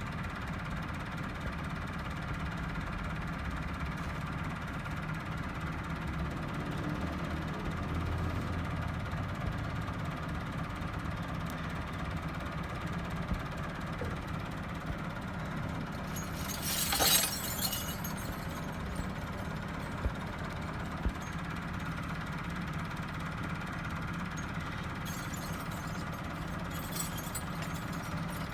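Massey Ferguson tractor's diesel engine idling steadily, with one short hissing burst a little past the middle.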